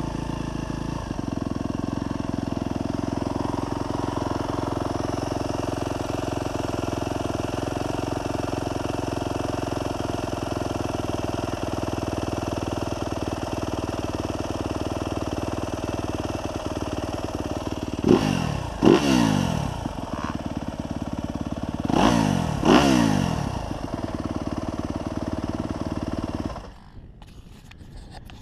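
2024 Yamaha YZ250F's 250 cc four-stroke single-cylinder engine idling steadily, with the throttle blipped twice in quick succession about eighteen seconds in and twice more about four seconds later, each rev falling back to idle. Near the end the engine is switched off and cuts out.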